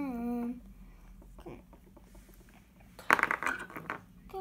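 A voice humming a held, wavering note that stops about half a second in, then, about three seconds in, a brief loud clatter of small hard objects knocking together.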